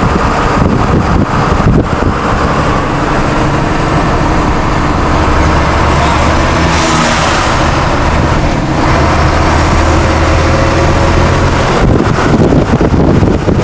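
Steady road and engine noise heard from inside a moving vehicle at highway speed, with a low hum under the rush of tyres and wind. A brief louder rush of air noise comes about seven seconds in, as the vehicle passes a roadside work truck.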